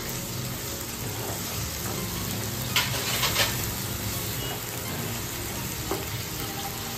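Diced potatoes and poppy-seed paste sizzling in a non-stick wok while a wooden spatula stirs and scrapes through them, with a few sharper scrapes about three seconds in.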